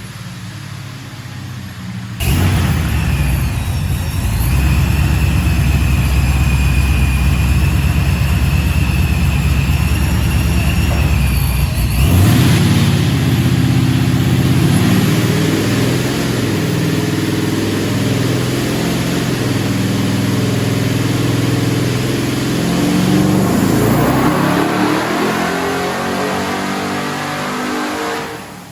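ProCharger-supercharged Ford 7.3 L Godzilla V8 in a Fox-body Mustang running hard on a chassis dyno. It starts suddenly about two seconds in with a high steady whine over the engine, changes abruptly about twelve seconds in, and drops away at the very end.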